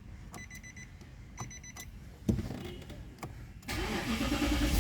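Car's dashboard warning chime beeping in short runs about once a second as the ignition is switched on, followed by a knock and, about three and a half seconds in, the Nissan Patrol's engine cranking and starting, running on with a low rumble.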